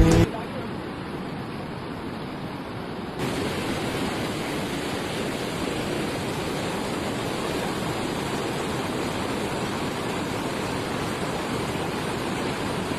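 Water pouring over a reservoir spillway: a steady rush that steps a little louder about three seconds in.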